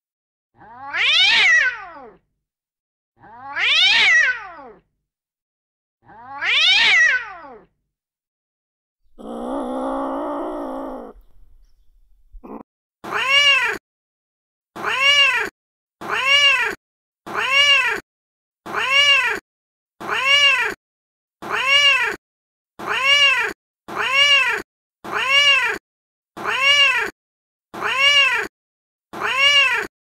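Recorded angry-cat vocalisations played from a phone cat-sounds app. First come three drawn-out yowls that slide down in pitch, then a lower, longer call. From about halfway on, short meows repeat roughly once a second, each rising and falling in pitch.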